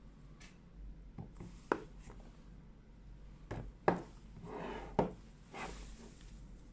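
Hands handling a phone's retail box and packaging: three sharp taps or knocks, the loudest about four seconds in, with short rubbing and sliding sounds between them.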